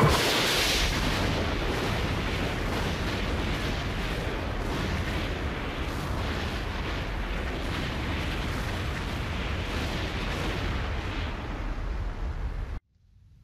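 Film battle sound of a cannon bombardment: a loud blast at the start, then a continuous din of explosions with many rapid small bangs. It cuts off suddenly shortly before the end.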